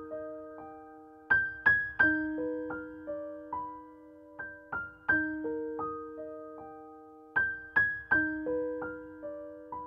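Background solo piano music: a slow, gentle melody of single notes that ring and fade, with the same short phrase coming round about every three seconds.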